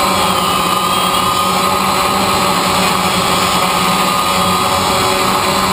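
DJI Phantom quadcopter's motors and propellers running steadily in flight, a constant buzzing whir with a slight waver in pitch, heard close up from the camera on the drone.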